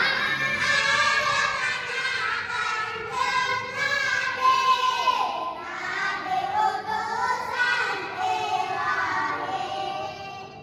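A group of children singing together in unison, with held notes that glide in pitch; the singing ends shortly before the end.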